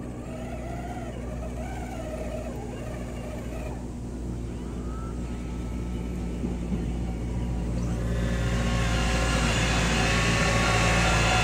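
Radio-controlled model CAT 5110 excavator's drive running as a steady hum with several tones. It gets louder and fuller about eight seconds in, as the upper body swings and the boom moves.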